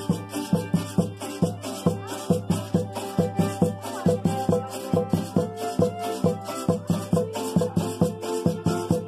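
Small acoustic guitar strummed in a steady, even rhythm, playing huehuentones folk music.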